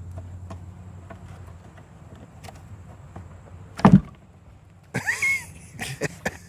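Work noises from handling the wooden subwoofer boxes and speakers: a low hum fades in the first two seconds, then one heavy knock about four seconds in, the loudest sound. A short squeak that bends in pitch follows, then a quick run of sharp clicks and knocks.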